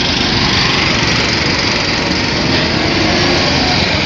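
Several small go-kart engines running at speed as the karts race past, a steady, high-pitched engine drone.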